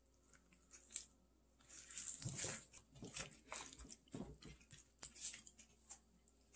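Black rubber-gloved hands tossing and squeezing cubed radish in wet chili seasoning in a stainless steel bowl: quiet squishing and crunching in irregular bursts, starting about two seconds in.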